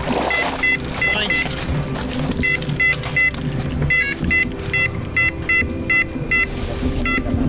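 Electronic carp bite alarm sounding a run of short, high beeps in quick, uneven bursts as a fish takes line, signalling a take.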